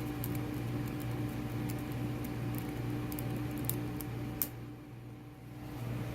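Faint small clicks and taps of hand tools working at a lock, a few scattered strikes, over a steady low electrical hum.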